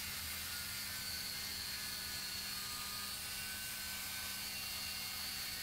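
Angle grinder with a thin 0.8 mm slitting disc cutting through a steel bar, running steadily with a constant high whine.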